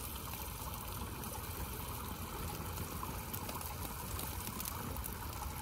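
Fire pit flames burning a paper plate on lava rocks, a steady rushing noise.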